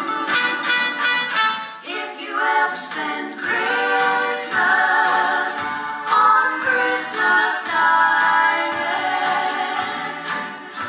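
Three women singing a song together in harmony, with long held notes.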